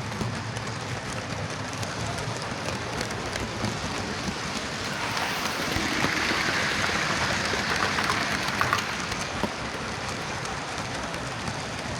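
Hornby OO gauge Merchant Navy 'Clan Line' model locomotive running on track: a steady whirr and rattle from its motor and wheels. It grows louder for a few seconds in the middle, as if passing close, with a few clicks near its loudest, then drops back. The model is running freely again after its dried-up lubricant was cleaned out, fresh lubricant added and the loose motor shimmed.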